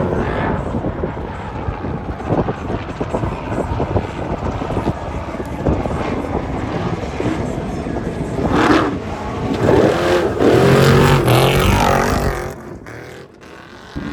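Off-road race vehicle engine running hard and revving, with the pitch rising and falling as it passes, loudest about nine to twelve seconds in, then dropping away sharply near the end.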